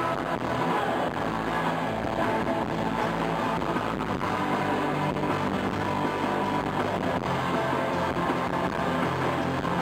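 Live rock band playing, with guitar prominent.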